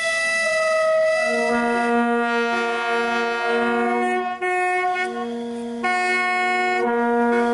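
Background music: held brass-like chords that change every second or so, with short breaks between phrases.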